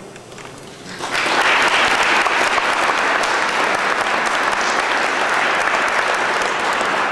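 Audience applauding: many people clapping, starting suddenly about a second in and keeping up steadily.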